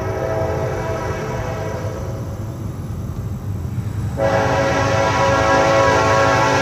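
Norfolk Southern freight locomotive's air horn sounding a long, sustained chord. It fades about halfway through, then sounds again, louder, about four seconds in.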